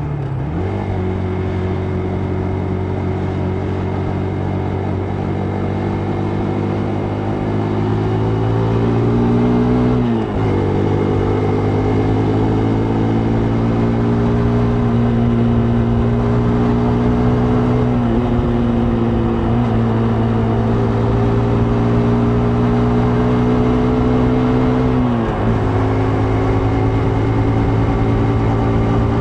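Vehicle engine running under way. Its pitch climbs slowly and drops sharply at each gear change: just after the start, and about 10, 18 and 25 seconds in.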